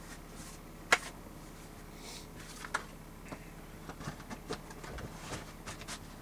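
Hard plastic carrying case of a Power Probe rechargeable soldering kit being handled: one sharp click about a second in, then a run of lighter clicks and knocks.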